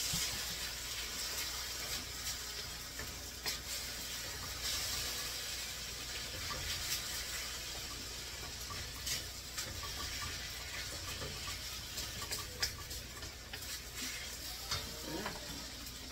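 Rice noodles sizzling steadily in a hot wok, the noodles charring a little, with scattered clicks and scrapes of a spatula against the pan.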